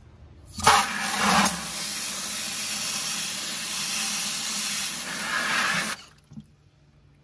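Garden hose spray nozzle jetting water onto a cactus's roots and into a plastic bucket, rinsing soil and mealybugs off them. The spray comes on suddenly about half a second in, runs steadily, and cuts off suddenly about a second before the end.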